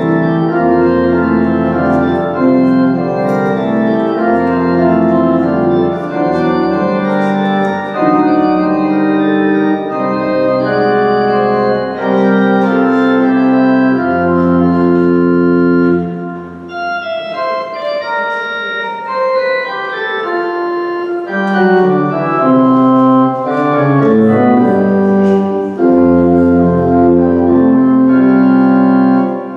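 Organ playing slow, held chords that change every second or two, dropping back for a moment about halfway through before swelling again.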